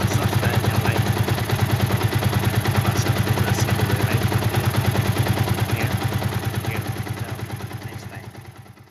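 Yamaha Vixion's single-cylinder four-stroke engine idling steadily, a quick even beat of about ten pulses a second, fading out near the end.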